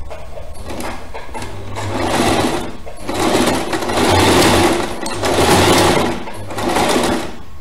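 Electric household sewing machine stitching in several short runs, stopping and starting as the fabric is guided.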